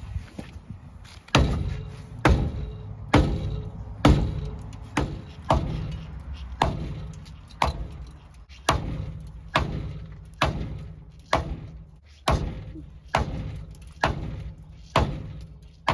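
Heavy hammer blows, about one a second, struck at a rust-seized Ford 289 V8 to try to break it loose. Each blow lands with a sharp bang and a short metallic ring.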